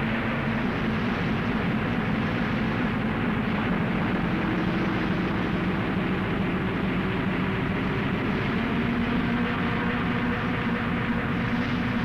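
Racing car engines running in a steady drone, their pitch shifting slightly a few times.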